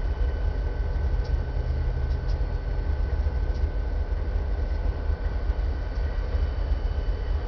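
Diesel-electric freight locomotives running, a steady low engine rumble with a steady whine above it.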